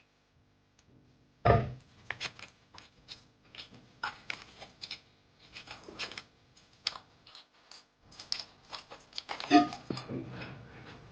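Irregular crackling and crunching of a crunchy snack being handled and eaten, with a sharp knock about one and a half seconds in.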